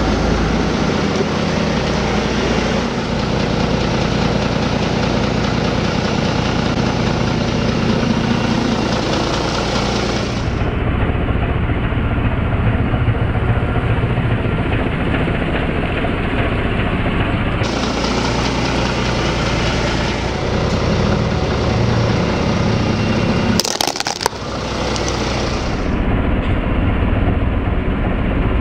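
Forklift engine running steadily, its tone shifting a few times, with one short sharp crack about three-quarters of the way through.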